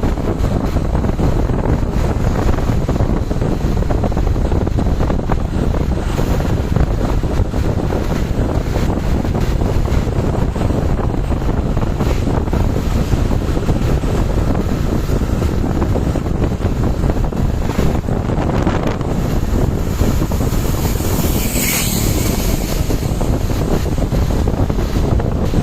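Heavy wind buffeting on the microphone over a steady low rumble of road traffic. A brief hiss rises near the end.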